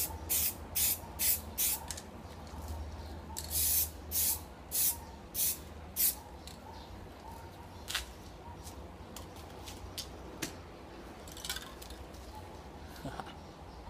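Aerosol can of Carlas rubber film spray paint hissing in short bursts, about two a second: a run of five, a short pause, then another run of five. A few light clicks follow.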